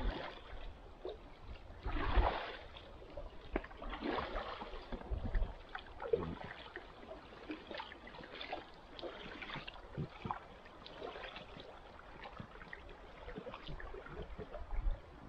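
Distant double-bladed paddle strokes from an inflatable kayak on a lake, a soft splash and wash of water about every two seconds.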